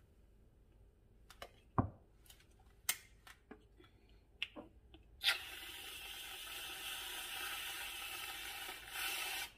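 Aerosol whipped cream can sprayed in one steady hiss lasting about four seconds, starting about five seconds in and cutting off sharply. It is preceded by a few light knocks and clicks as the can is handled.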